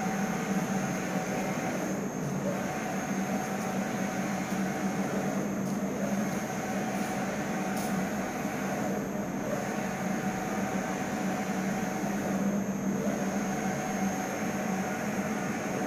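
UV flatbed printer running mid-print: a steady machine hum, with the print carriage's travel coming and going as it sweeps back and forth about every three and a half seconds.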